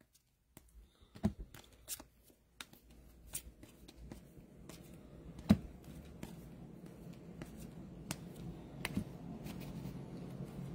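Baseball trading cards being slid and flipped through by hand, giving soft scattered clicks and snaps of card edges at irregular intervals, the loudest about halfway through.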